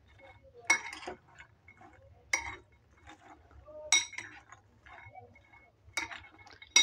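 A metal spoon mixing chopped onion, tomato and sprouted chickpeas in a glass bowl: a handful of sharp, irregularly spaced clinks of the spoon against the glass, with soft scraping and shuffling of the food between them.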